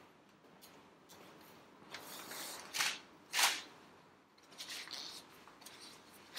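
A cloth rag being cut and handled: a few short rasping swishes between about two and three and a half seconds in, then softer rustling.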